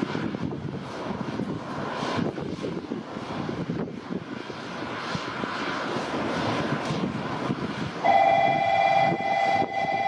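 Rumbling noise of a Shinkansen and the station around it. About eight seconds in, a steady warbling electronic tone starts suddenly and keeps going: a platform warning or departure signal.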